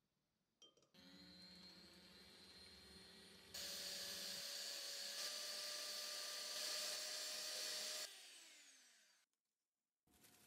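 Electric hand mixer beating whole eggs in a glass bowl: a steady motor whine that starts about a second in and gets louder partway through. Near the end it is switched off and spins down with a falling pitch.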